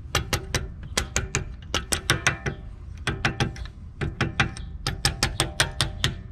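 Hammer tapping out the pad retaining pins on the Brembo rear brake caliper of a 2019 Dodge Durango SRT. Sharp metal-on-metal taps with a short ringing after each come in quick bursts of four to seven strikes, about a second apart.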